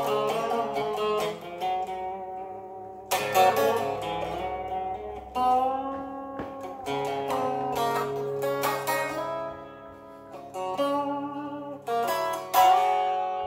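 Electric guitar played as an instrumental break between verses: chords and notes struck every two or three seconds, each left to ring out.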